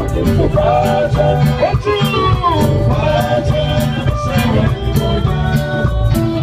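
Live gospel band playing through loudspeakers, with a woman singing lead into a microphone over a steady drum beat, bass, guitar and keyboard.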